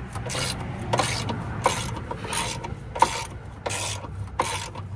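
Socket ratchet wrench tightening a motor-mount bolt: short rasping ratchet strokes repeated about every half second as the handle is swung back and forth.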